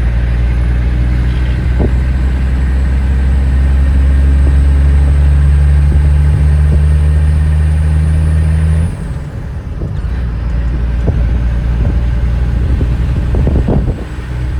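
Truck engine running steady under load while towing a loaded car hauler on the road. Its drone drops away abruptly about nine seconds in, leaving lower road and vehicle noise with a few knocks and rattles.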